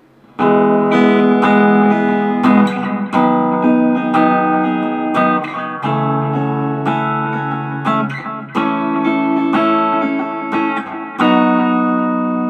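Squier Bullet Telecaster electric guitar on its neck pickup, played through a Roland Cube amp with reverb and delay: a run of strummed and picked chords, the last chord left ringing near the end.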